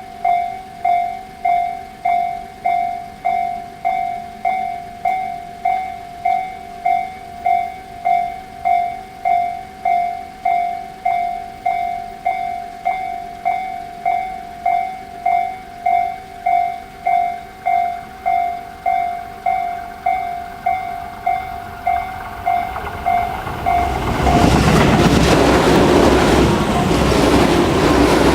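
Japanese railway level-crossing electronic warning bell of the Tobu 'sound C' slow-tempo type, dinging steadily at about one and a half strokes a second. Near the end the dinging stops and a train passes the crossing loudly.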